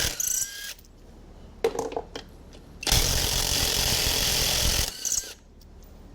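Power impact wrench hammering on a stubborn wheel nut in one burst of about two seconds near the middle, with short metallic clinks before it.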